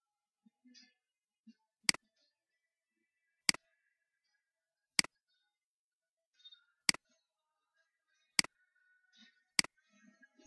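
Computer mouse clicking: six single sharp clicks, spaced unevenly about one to two seconds apart.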